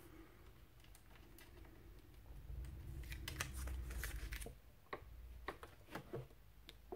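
Faint handling sounds: a stack of cutting plates with taped-down cardstock being pushed across a cutting mat and into the opening of a hand-crank die-cutting machine. There are scattered taps and scrapes, most of them between about two and a half and six and a half seconds in, with a low rumble partway through.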